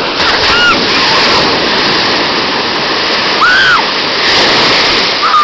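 Ocean surf breaking and washing around the shallows: a loud, steady rush of churning water. Two short high-pitched cries rise and fall, one near the start and one past the middle.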